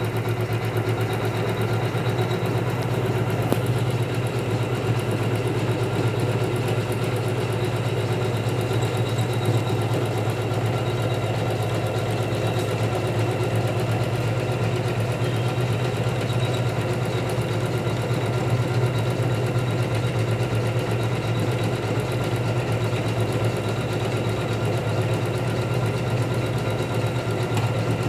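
Computerized embroidery machine running steadily as it stitches a design into fabric in a hoop: a constant mechanical hum with the fast, even chatter of the needle.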